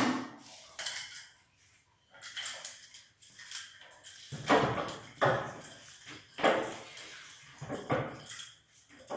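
A series of knocks and scrapes with a few metallic clinks: a metal-legged chair shifted on a hard stone floor and a child climbing onto it, with the hanging chain rattling. The loudest knocks come in the second half.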